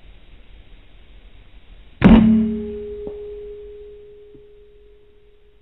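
A single rifle shot at a perched spotted dove, a sharp crack followed by a clear metallic ring that dies away over about three seconds.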